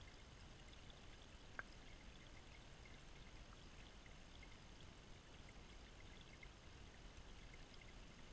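Near silence: a faint steady hiss from a camera submerged in a creek, with faint scattered ticks and one small sharp click about one and a half seconds in.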